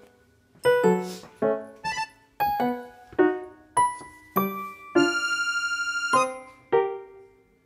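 Background music: a light piano-like keyboard melody of single notes, each ringing out and fading, about two a second, with a quick run of repeated notes about five seconds in.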